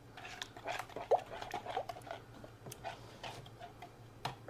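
Utensil stirring a mix of canola oil, ranch seasoning and crushed red pepper: irregular light clicks and scrapes against the container.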